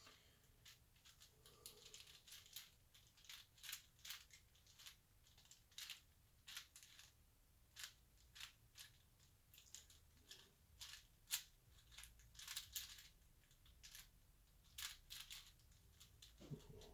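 Faint, irregular plastic clicks of a 4x4 Rubik's cube as its layers are turned by hand, one or two a second.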